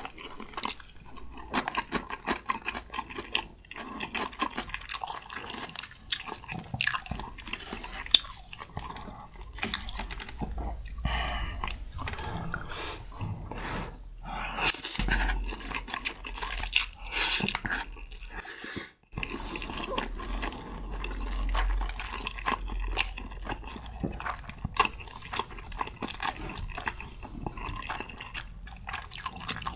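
Close-miked eating sounds: wet chewing, lip smacking and slurping of saucy spicy Buldak fire noodles, a dense run of small irregular clicks and squelches.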